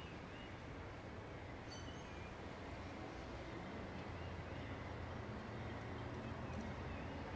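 Faint outdoor ambience: a steady low rumble that grows slightly louder, with a few short bird chirps, one cluster about two seconds in.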